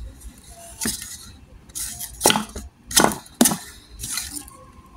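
A wooden hamster wheel on its stand being handled, giving four short sharp knocks and clacks of wood spread over a few seconds.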